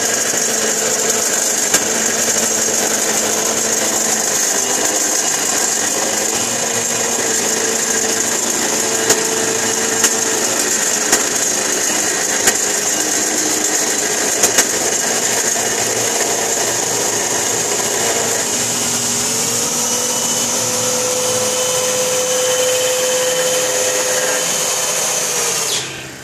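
A Ridgid table saw's dado blade running while a Hitachi drill spins a reclaimed red oak blank against it, the blade hogging the blank down to a round tool handle in one pass. There is a steady machine din with a few steady tones, and it drops sharply near the end.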